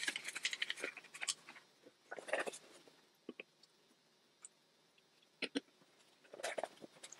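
Small plastic clicks, taps and rustles from gloved hands handling the bottle and cap of an Eezibleed clutch-bleeding kit and a plastic brake fluid container. The clicks are busiest in the first couple of seconds, then sparse, with two sharp clicks about five and a half seconds in.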